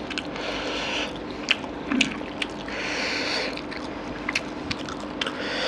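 Wet, sticky squelching of fingers pulling apart curry-soaked mutton, with short sharp clicks and smacks in between.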